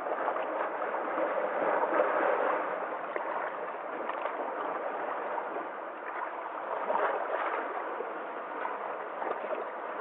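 Small sea waves washing and sloshing among shoreline rocks, swelling about two seconds in and again about seven seconds in.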